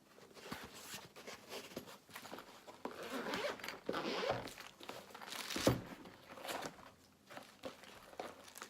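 Zipper on a soft-sided binocular carry case being pulled open, with fabric rustling and handling noise and one sharper knock a little past halfway.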